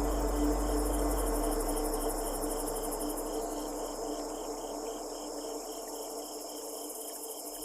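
Suspense ambience sound effect: sustained droning tones under a steady, cricket-like pulsing of about four beats a second with a fast high shimmer above it. A low rumble dies away through the first half and the whole bed slowly fades.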